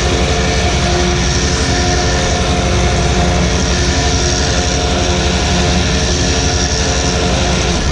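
A motorised machine running loudly and steadily, stopping at the very end.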